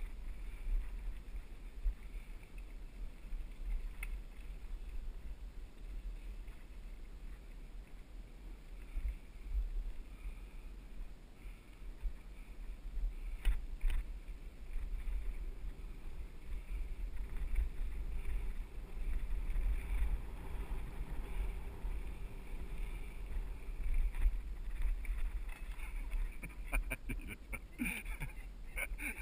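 Deep wind-and-motion rumble on a GoPro riding a mountain bike down a dirt singletrack, with tyre noise on the dirt and a few short rattles from the bike.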